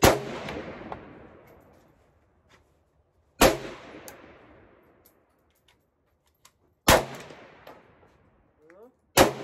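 Four gunshots, roughly three seconds apart, each very loud and sharp with a long echoing tail that dies away.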